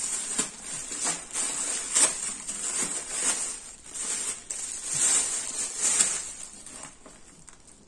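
Plastic packaging crinkling and rustling in the hands: a grey plastic courier bag is torn open and a clear plastic wrapper pulled off. It is quieter for the last second or so.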